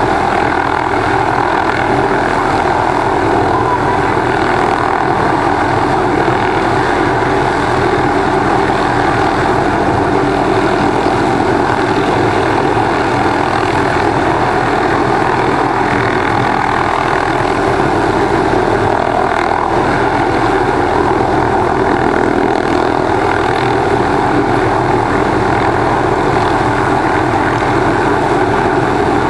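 MD 500-series turbine helicopter hovering close by: steady rotor and engine noise that holds even throughout.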